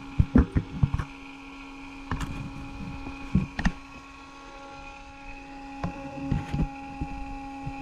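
Clusters of knocks and clicks from parts and tools being handled in a car's engine bay, over a steady electrical hum.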